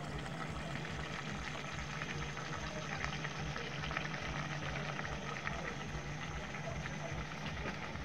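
Tomato-based chicken stew simmering in an aluminium pot on a gas burner: a steady bubbling crackle over a low hum.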